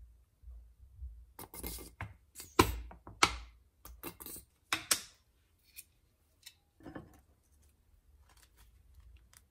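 Sriracha squeeze bottle sputtering and squelching in a series of short spurts as sauce is squeezed out, followed by a softer knock or two of things being handled on the counter.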